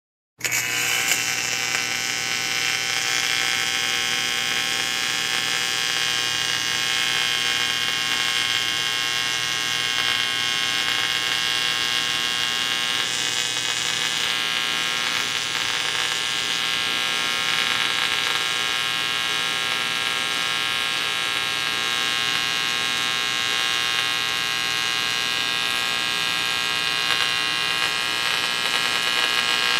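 Electric buzz of vibrating electrical wires: a steady hum with many overtones and a bright hiss on top. It starts abruptly about half a second in and holds level throughout.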